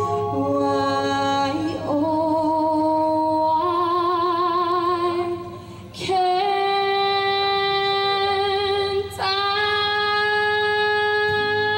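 A woman singing into a microphone, amplified through a PA speaker: short wavering notes, then two long held notes from about six seconds in.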